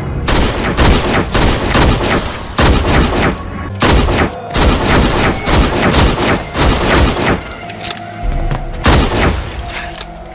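Handgun gunfire: shot after shot in quick succession, two or three a second, thinning out near the end with one last loud shot.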